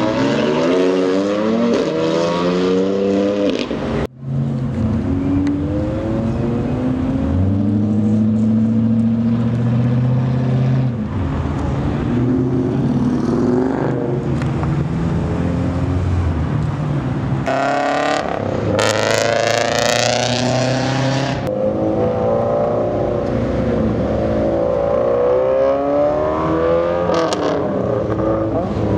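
Cars accelerating away one after another, their engine notes climbing in pitch through the gears. The loudest is a hard acceleration with a high, rising engine note about two-thirds of the way through.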